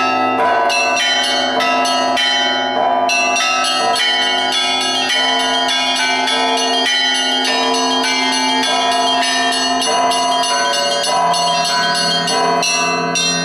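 Russian Orthodox church bells rung by a single bell ringer in a chime (zvon). Fast, dense strokes on the smaller bells sound over the steady ringing of the larger bells, and a deeper bell tone comes up more strongly about ten seconds in.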